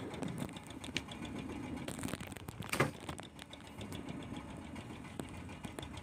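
Fishing boat's inboard engine running with a fast, even chugging rhythm, over a wash of water rushing along the hull. One louder slap comes about three seconds in.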